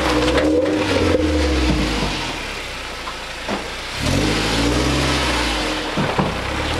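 Toyota Tacoma's 2.7-litre four-cylinder engine pulling under throttle as the truck crawls a dirt trail. It eases off for a couple of seconds mid-way, then comes back on the gas, with a few short knocks.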